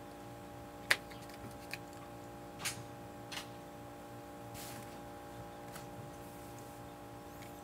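A steady electrical hum with a few sharp, irregular clicks or taps, the loudest about a second in and smaller ones over the next two and a half seconds.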